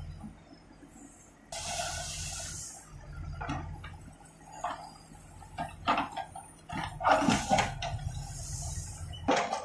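Escorts backhoe loader's diesel engine running with a steady low hum while its backhoe bucket works through broken concrete and soil. Stones and rubble knock and clatter, more and louder in the second half, with two bursts of rushing noise.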